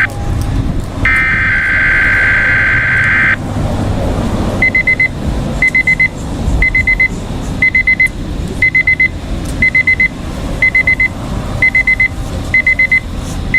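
A burst of weather-radio alert data tones, a harsh two-tone screech, ends about three seconds in. From about four and a half seconds the Midland HH54 weather radio beeps its alert in quick groups of four, about once a second.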